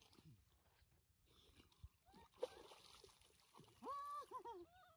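Quiet open-air background with a faint hiss. About four seconds in, a distant voice calls out for about a second.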